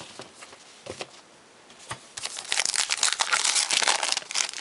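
Wrapper of a pack of baseball cards being torn open and crinkled: a few light handling clicks, then about two seconds of dense crackling from the wrapper near the end.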